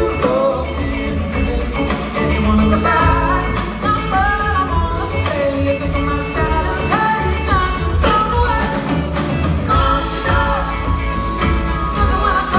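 Live band playing with a woman singing the lead melody, backed by drum kit, electric guitar, keyboards and upright double bass.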